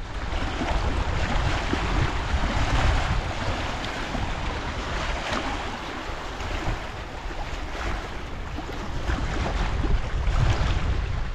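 Wind rushing and buffeting the microphone, with a heavy low rumble under a steady hiss that swells and eases.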